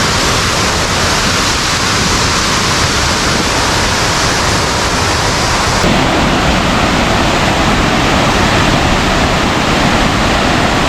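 Loud, steady rushing roar of a large waterfall in full flow, swollen after rain. Its tone changes abruptly about six seconds in.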